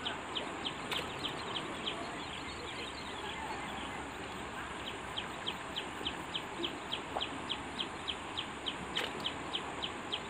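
A bird repeats a short high chirp about three times a second, pausing for a couple of seconds about three seconds in. Underneath runs the steady rush of river water pouring through the open sluice gates of a weir.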